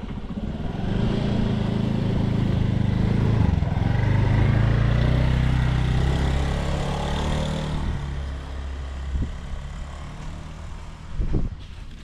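Small motor scooter's engine running as it passes close by on a narrow path, loudest a few seconds in and fading as it rides away. A short knock near the end.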